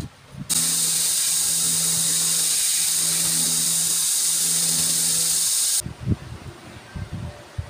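Belt grinder running, its sanding belt grinding a wooden knife-sheath piece: a loud steady hiss over a low motor hum that starts suddenly about half a second in and cuts off abruptly near six seconds. A few light knocks of hand work come before and after.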